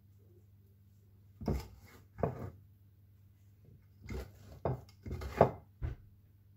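A utensil scraping and knocking against a ceramic baking dish while baked sausage rolls in dough are lifted and shifted about: seven or so short scrapes and clinks, the loudest just after five seconds in.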